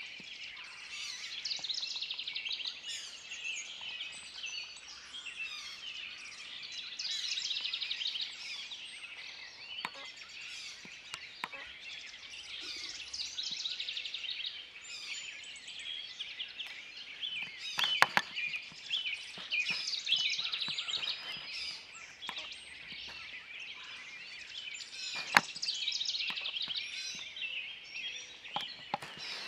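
Dense chorus of songbirds singing and chirping, with a couple of sharp clicks, the loudest sounds, one past the middle and one later on.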